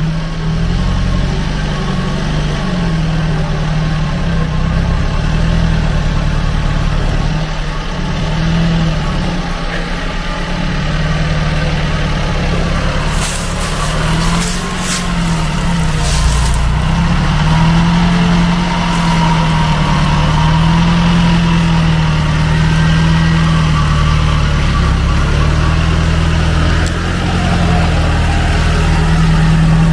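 UAZ 4x4's engine running under load as it drives through swamp water and mud, its pitch rising and falling as the throttle is worked. Short bursts of noise about halfway through.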